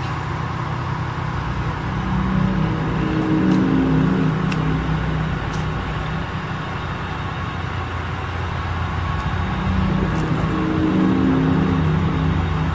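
A large engine on tree-removal equipment running steadily, revving up twice for a few seconds each time.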